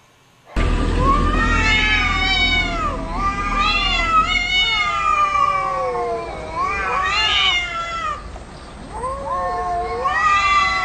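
Two cats yowling at each other face to face: long, drawn-out, wavering caterwauls, sometimes overlapping, with a brief lull near the end. This is the kind of yowling cats make in a territorial standoff before a fight.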